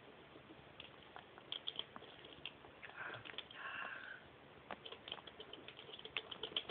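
Hedgehog eating from a food dish: faint, quick chewing clicks, sparse at first and then settling into a steady run of about six a second from about five seconds in, with a short snuffle around three seconds in.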